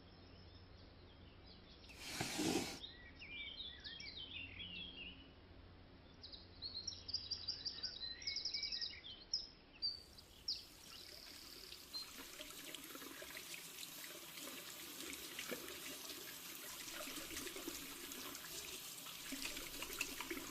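Birds chirping, with a short whoosh about two seconds in. About halfway through, the scene changes to the steady rush of water running from a tap.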